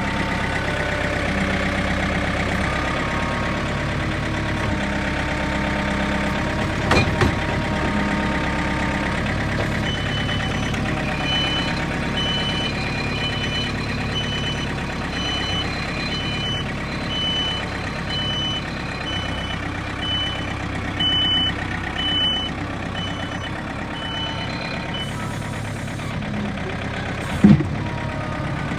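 Backhoe's diesel engine running steadily, with a reversing alarm beeping at an even pace, a little faster than once a second, from about ten seconds in for some fifteen seconds. A couple of short knocks come through, one early and one near the end.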